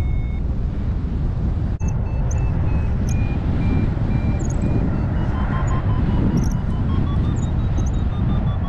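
Wind buffeting the microphone in paraglider flight, with a variometer beeping a run of short tones, a few a second. The tones climb in pitch through the second half, the instrument's sign that the glider is going up.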